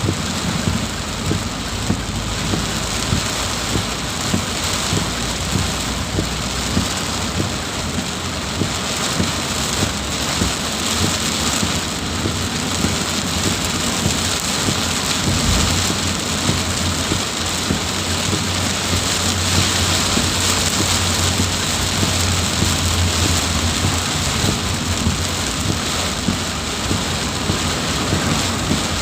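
Heavy rain pouring steadily, with many small patters of drops standing out, and a low rumble growing stronger through the middle.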